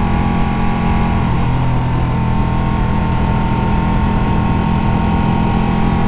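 Sport motorcycle engine running at steady revs while cruising, heard from onboard the bike; the engine note holds almost level, with a slight shift in pitch about a second and a half in.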